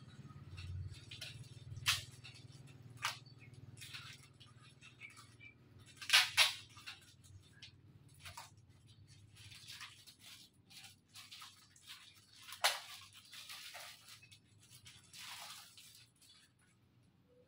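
Papers and packaging being handled: scattered rustles and sharp crinkles, the loudest a quick double crackle about six seconds in and another about thirteen seconds in.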